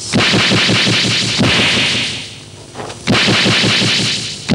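Rapid, even train of sharp hits, about ten a second, over a bright hiss, like a fast drum roll in a fight-scene soundtrack. It fades about two seconds in and starts again abruptly about three seconds in.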